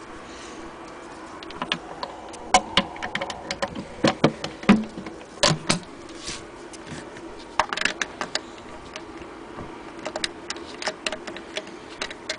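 Irregular clicks, taps and knocks of hands handling twine tied around a wooden sewing-machine case, with its small metal hook knocking against the wood, over a faint steady hum.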